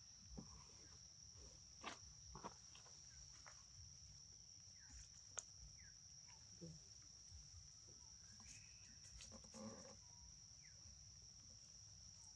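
Faint, steady high-pitched insect drone, with scattered faint rustles and clicks of dry leaves and a few short chirps.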